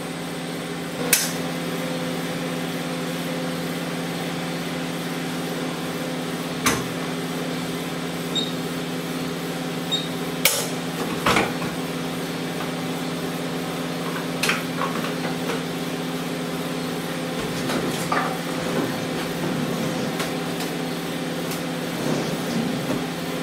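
Sharp metallic clicks and knocks, about eight spread across, as the sample canister and stirring paddle are handled on an RVA StarchMaster 2 viscosity analyser. Under them runs a steady mechanical hum.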